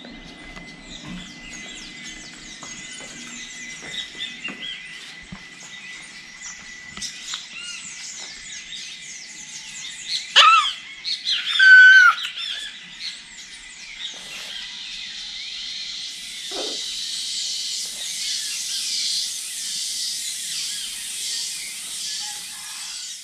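A chorus of tropical forest birds chirping and whistling, with a few loud nearby calls that fall in pitch about halfway through. From about two-thirds of the way in, a dense, pulsing high-pitched chorus builds up beneath the birds.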